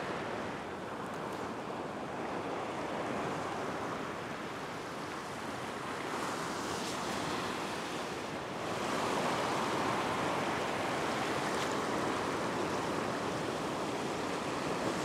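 Ocean surf washing steadily over a flat rock shelf, growing a little louder just past the middle.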